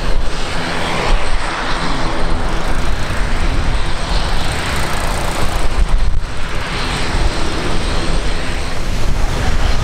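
Aircraft engines running, loud and steady.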